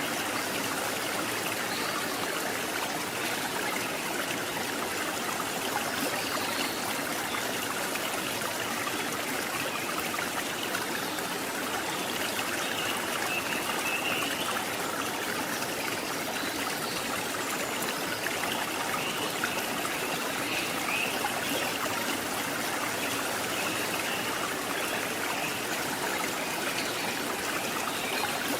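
Stream water flowing steadily over rocks, an even rushing and trickling.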